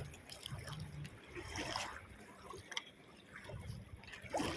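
Faint sloshing and dripping of shallow seawater, with a few small scattered clicks.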